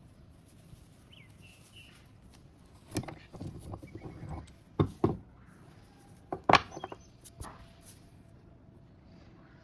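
A few sharp knocks and clicks as a small metal C-clamp is handled and tightened down over a brass stamp on leather, loudest about three, five and six and a half seconds in.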